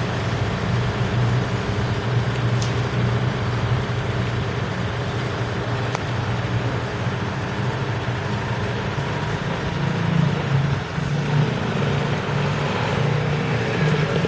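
A motor vehicle's engine idling, a steady low hum that does not change.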